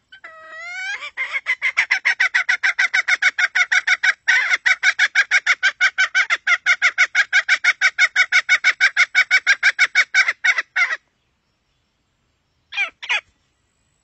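Red junglefowl call, used as a lure for wild junglefowl: a few rising notes, then a fast, even run of clucks, about five a second, that cuts off abruptly, followed by two short calls near the end.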